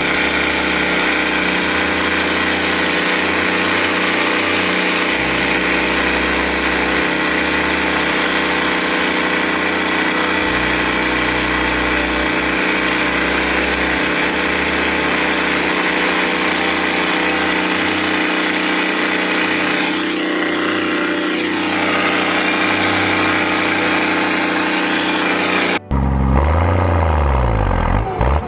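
New Holland tractor engine running at a steady speed with an even drone. Near the end the sound changes abruptly to something different.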